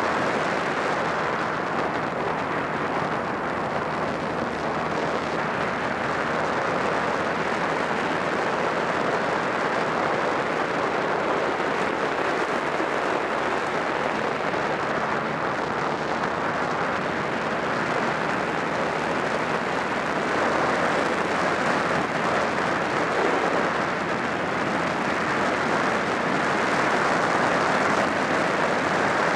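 Steady wind rush on the microphone of a motorcycle riding at speed, with the Honda Rebel 250's engine running underneath. It gets a little louder near the end.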